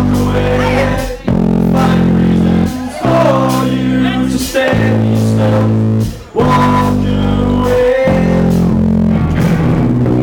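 Live rock band playing: electric guitar, bass guitar and drums in held chords that stop short about every second and a half, with a voice singing over them.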